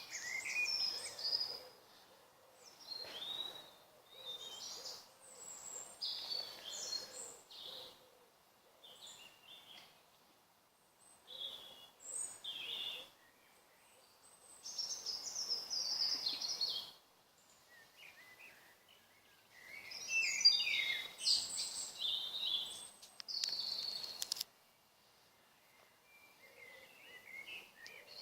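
Woodland birds singing in a dusk chorus: high, quickly changing phrases of song a second or two long, with short pauses between them.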